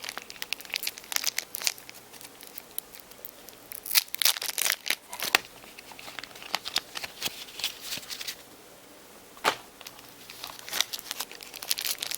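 Foil trading card booster packs being torn open and crinkled by hand, in irregular bursts of tearing and crinkling with a short quiet stretch near the end.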